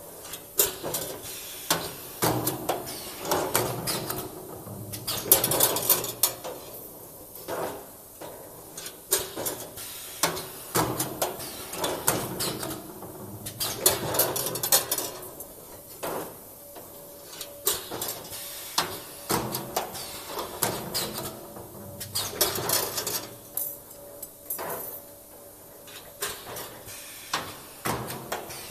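Automatic CNC wire bending and welding machine working through its forming cycles: quick metallic clicks, knocks and clatter from the bending head and clamps as steel wire is shaped into oval rings. The clatter comes in busy stretches that repeat every several seconds, with short hisses among them.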